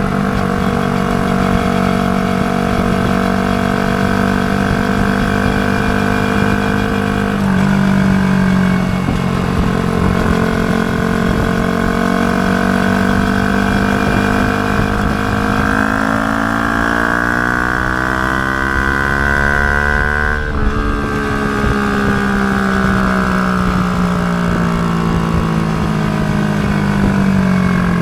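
Yamaha YZF-R125's single-cylinder four-stroke engine running through a Mivv GP Pro exhaust with the dB killer fitted. It runs steadily near idle, then the revs climb slowly for several seconds, drop abruptly about two-thirds of the way through, and ease back down.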